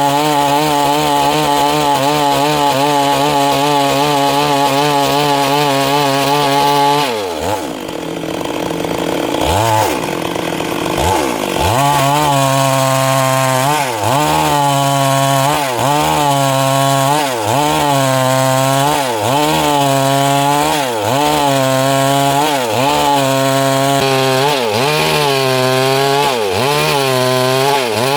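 Stihl MS382 two-stroke chainsaw running at high revs. About seven seconds in the revs fall away and blip twice. From about twelve seconds on, the engine speed dips and recovers in a regular rhythm roughly every second and a half.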